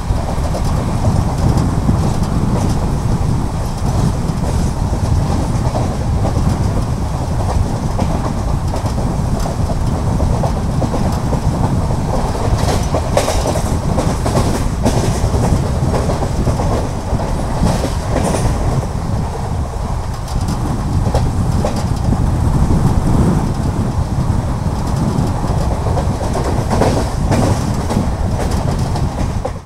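Express passenger train running on the rails: a steady loud rumble with the clickety-clack of wheels over rail joints.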